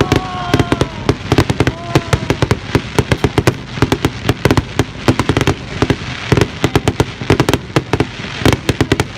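Fireworks going off in a rapid barrage: sharp bangs and crackles, several a second and without a pause, with a couple of short falling whistles in the first two seconds.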